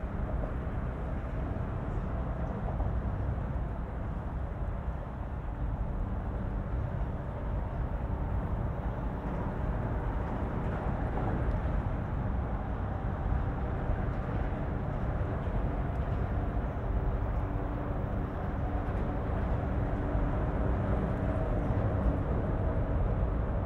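Steady rumble of road traffic on a city street. A faint, steady engine-like hum joins it about two-thirds of the way through.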